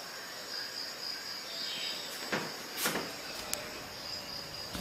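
Steady, high-pitched insect chirring, like crickets, runs in the background. Two brief knocks come about halfway through, then a sharp click, as the plastic printer parts are handled.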